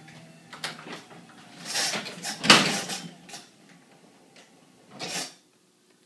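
Garage door being closed: a faint steady hum, a few knocks and scrapes, then a heavy thud about two and a half seconds in, with another knock near the end.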